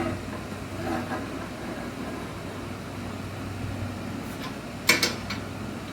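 Stabilizer fin skeleton being handled and slid onto its mounting plate, giving a few sharp knocks about five seconds in over a steady low hum.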